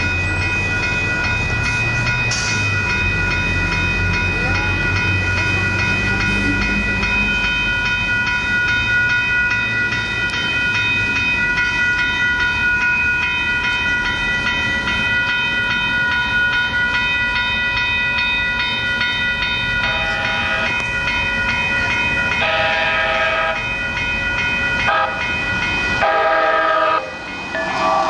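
Metro Blue Line light-rail train at a grade crossing: the crossing's warning bells ring steadily while the train rumbles past in the first several seconds. In the last third, a train horn sounds several short blasts.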